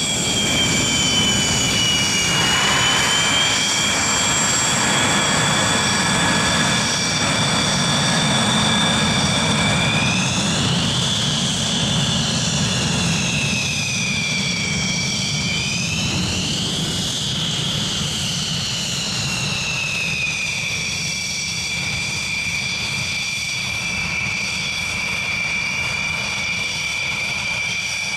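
Morane-Saulnier MS.760 Paris jet taxiing, its twin Turbomeca Marboré turbojets giving a high whine over a low rumble. The whine rises and falls in pitch twice in the middle, then settles to a steady note.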